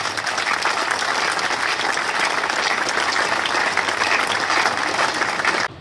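Large crowd applauding, a steady dense clapping of many hands that cuts off suddenly near the end.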